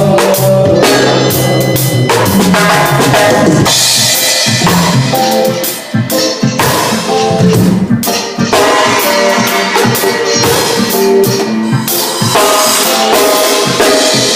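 Live band music: a drum kit playing a steady groove with bass drum and snare hits over bass and sustained pitched instrument notes.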